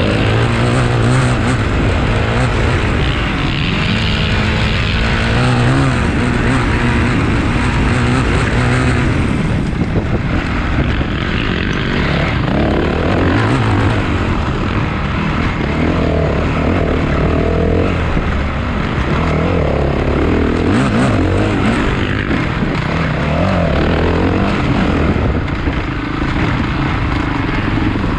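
Motocross bikes racing, several engines running hard at once, their pitch rising and dropping as the riders throttle on and off.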